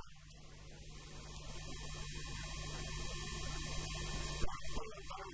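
Steady electrical mains hum and buzz with many overtones, growing slightly louder. A sharp click comes near the end, then a man's voice comes back in.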